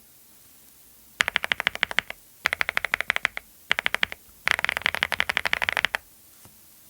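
Mechanical keyboard fitted with Clackbits linear switches being typed on in four quick bursts of rapid keystrokes, each a run of sharp clacks, with short pauses between the bursts. One faint lone click near the end.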